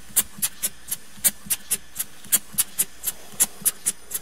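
Scratch-built two-cylinder double-acting oscillating (wobbler) model engine running slowly on compressed air at barely any pressure: an even train of short, sharp exhaust puffs, about four a second.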